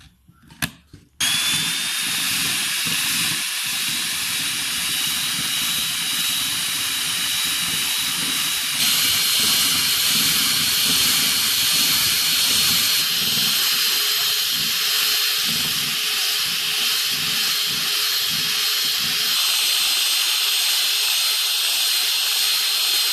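Electric hand mixer starts about a second in and runs steadily with a high whine, its twin beaters whipping instant coffee, sugar and water into dalgona foam. It gets a little louder about nine seconds in.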